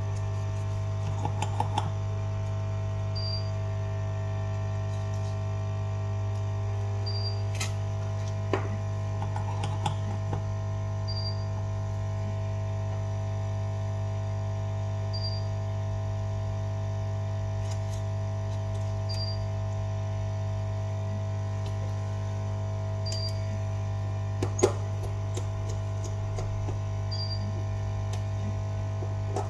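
Steady electrical hum with a short high blip about every four seconds, and a few light clicks and taps, the sharpest about 25 seconds in.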